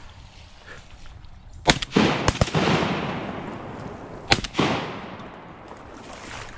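A volley of shotgun blasts from several duck hunters firing at mallards. Four or five shots come in quick succession about two seconds in and one more about two seconds later, each trailing a long, fading echo.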